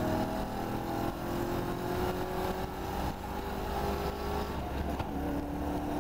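Car engine and road noise heard from inside a moving car: a steady low rumble with an engine note that rises slowly, drops back about five seconds in, and starts rising again.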